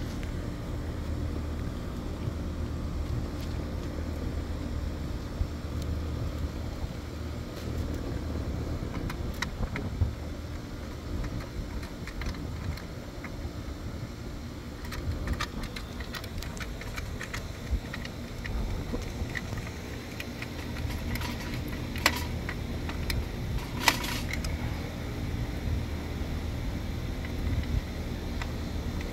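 Steady low hum of rooftop air-conditioning equipment running, over scattered small clicks and clinks of hand tools working wires and terminal screws in an electrical disconnect box, with two sharper clacks near the end.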